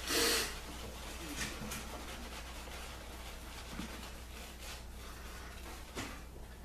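Super badger shaving brush working soft shaving-soap lather over a stubbled face: a steady soft brushing and rubbing, with a louder swish right at the start and another near the end.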